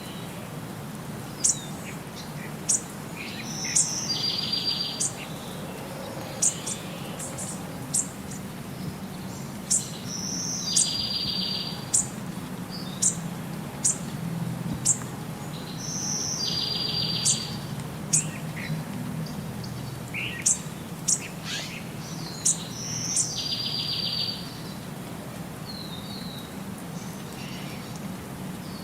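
Bird calls: many short, sharp high chirps, with a buzzy note of about a second that comes back roughly every six seconds, over a steady low hum.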